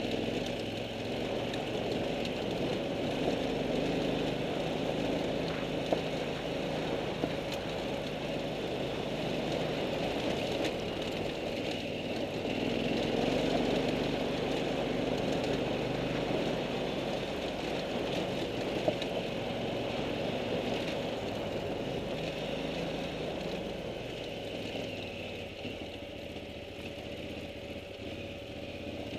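A vehicle engine running steadily at low speed on a loose gravel track. There are a few brief sharp ticks, once about six seconds in and once about two-thirds of the way through.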